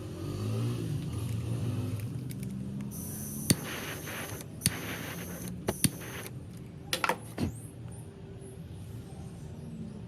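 A low, steady engine-like hum, with several sharp metallic clicks and clinks between about three and a half and seven and a half seconds in.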